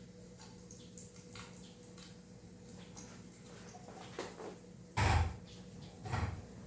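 Faint handling clicks over a steady low hum, then two dull thumps about five and six seconds in.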